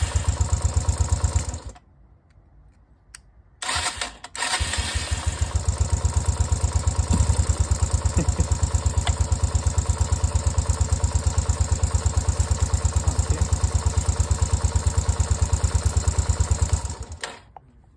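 Yamaha motorcycle engine idling with steady, even firing pulses. It is cut off abruptly by the kill switch about two seconds in, restarted around four seconds in, and idles again until it is cut off suddenly near the end. The repaired kill switch is now stopping the engine.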